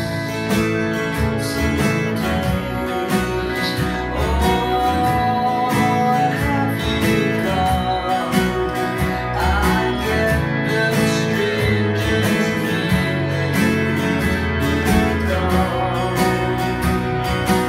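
Steel-string acoustic guitar strummed in a steady rhythm of chords, with a deep bass line under it and a gliding melody line above it for a stretch in the middle.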